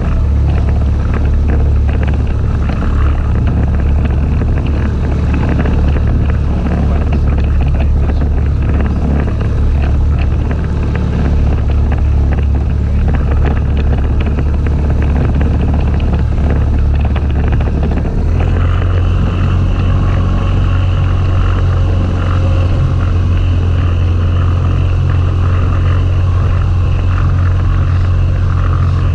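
Outboard motor of a small inflatable boat running steadily under way, over a constant rush of wind and water. About two-thirds of the way through, the engine note steps up to a higher speed and stays there.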